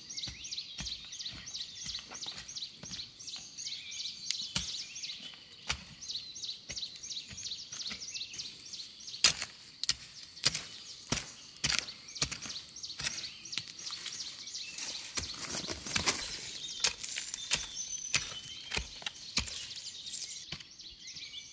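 Hand hoe chopping into ash-covered hillside soil, a run of irregular dull strikes, the loudest about nine to twelve seconds in. High chirping calls run continuously behind it.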